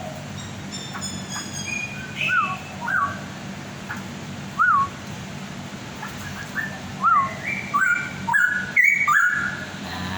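Straw-headed bulbul (cucak rawa) singing: clear whistled notes, first short slurred phrases spaced out, then a louder, quicker run of rising whistles in the last few seconds.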